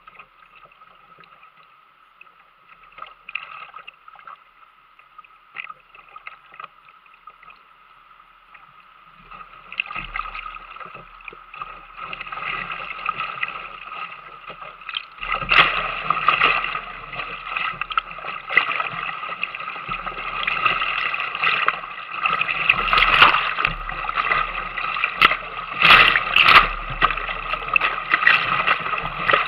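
Whitewater rapids rushing and splashing around a kayak, heard from a camera on the boat's deck, with paddle strokes and water hitting the deck. It is fainter at first, swells about a third of the way in, and gets much louder past halfway as the boat runs the rapid, with splash peaks.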